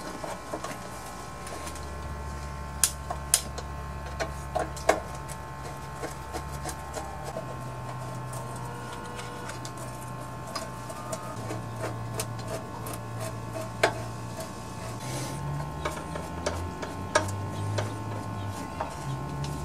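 Hand-tool work on a small engine: scattered sharp metal clicks and taps as a nut driver fits and tightens screws on the engine's cover, over a low steady hum.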